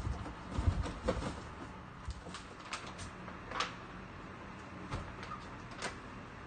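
Items being handled and lifted out of a large cardboard box: scattered knocks, thumps and rustles, the loudest a low thump under a second in, over a faint steady hum.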